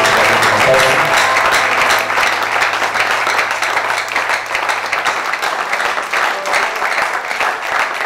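Congregation applauding: dense, steady clapping throughout, with a faint low hum underneath that stops about five seconds in.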